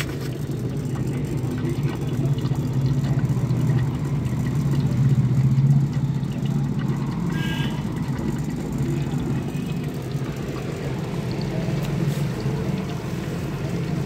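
Strong wind buffeting the microphone: a steady low rumble that swells and eases, loudest about five to six seconds in.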